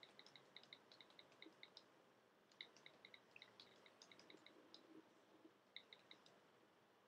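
Faint, short high clicks of a phone's keypad as a text message is typed, coming in quick irregular runs of several a second with brief pauses between them.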